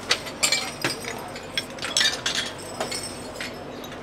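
Glassware and cutlery clinking: a string of irregular sharp clinks, several a second, each with a short ringing tone.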